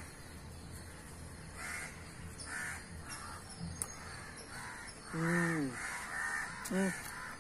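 Crows cawing over and over, short calls every half-second to second. Twice in the second half a person makes a short, low voiced sound, louder than the caws.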